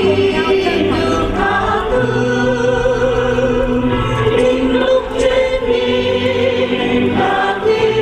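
A choir singing a slow song together, with long held notes.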